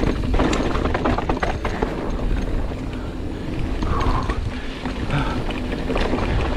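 Giant Reign 29 full-suspension mountain bike rattling down rough, rocky singletrack: a dense, irregular run of clicks and knocks from the bike over the terrain. A heavy wind rumble on the microphone runs under it.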